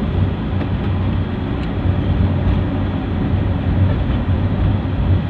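Steady engine and road noise of a moving road vehicle, a low hum with no change in pitch.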